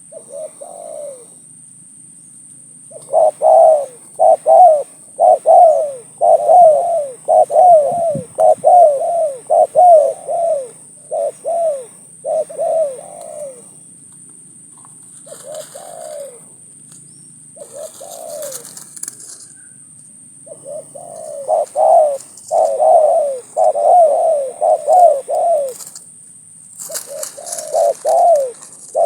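Spotted doves cooing in two long runs of short coos, each note falling in pitch, with a pause of about two seconds midway.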